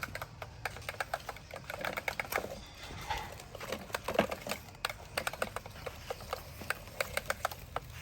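Toy construction vehicles at work: rapid, irregular clicking and rattling over a steady low motor hum.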